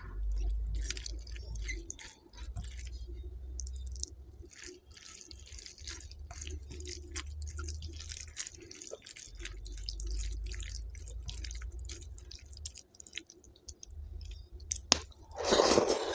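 Fingers squishing and mixing rice into runny dal, with many small wet squelching sounds. Near the end comes a louder burst of mouth sounds as a handful is eaten.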